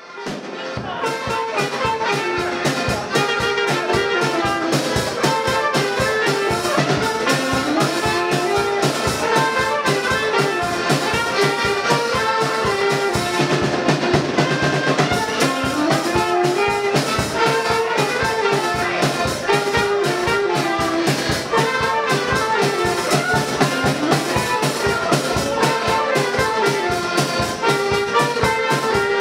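Live folk dance band playing: saxophone and two accordions carry the melody over a drum kit keeping a steady beat. The music fades in over the first second or so.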